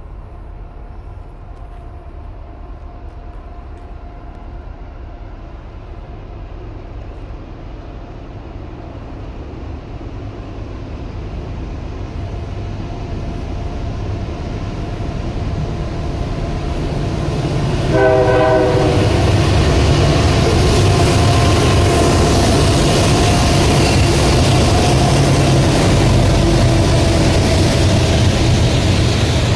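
Union Pacific rock train led by GE diesel locomotives approaching and passing close by. The low rumble grows steadily louder for about eighteen seconds. A short horn note sounds as the locomotives arrive, then the engines and the wheels of the loaded gravel cars rumble past loudly.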